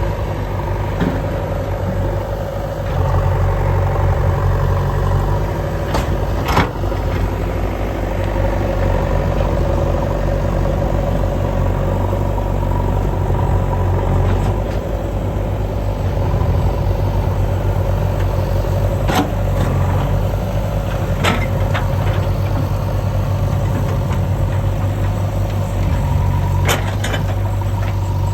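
JCB 3DX backhoe loader's diesel engine running steadily, with a few short metallic knocks from the machine working.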